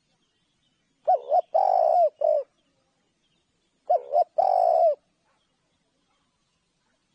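Spotted dove cooing in two phrases. The first comes about a second in, with four rolling notes (two short, one long, one short). The second comes about four seconds in, with two short notes and a long one.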